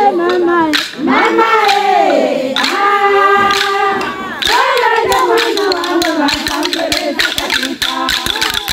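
Group of voices singing or chanting together. Sharp beats join in, growing quick and dense over the second half.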